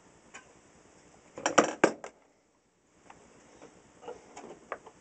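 Small metallic clicks and clinks from hands working the wiring and parts of a radio chassis: a single click, a quick cluster of louder clinks about a second and a half in, then fainter scattered ticks.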